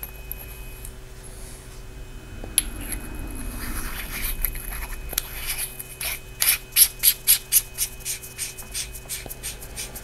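Nitecore MH27 flashlight being reassembled by hand: the 18650 cell sliding into the body, a light click about two and a half seconds in, then the threaded barrel being screwed back on in a run of short rasping twists, about four a second, loudest just past the middle.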